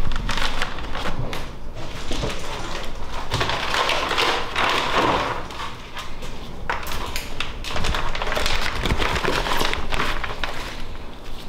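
Clear plastic vacuum-sealer bag rustling and crinkling as it is handled and opened, with scattered small knocks and clicks.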